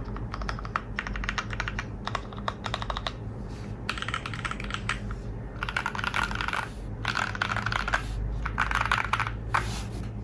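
Fast typing on an NJ68 mechanical keyboard with lubed, filmed Holy Panda tactile switches in a stainless steel plate: dense runs of key clacks in bursts, with short pauses in between. The last few bursts are the loudest.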